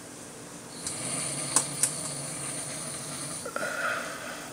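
A man snoring: one long snore of about three seconds, with two short clicks partway through and a brief whistly tone as it ends.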